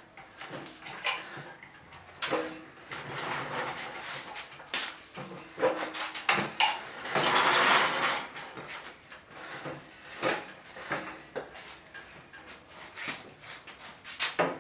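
Scattered clunks, knocks and scrapes as a 4L60E automatic transmission is hauled by hand up under the car and the floor jack is moved, with a longer rush of scraping noise about seven seconds in.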